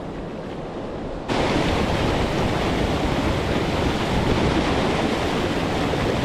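Steady rush of water over a creek's waterfalls and rapids, jumping abruptly louder a little over a second in.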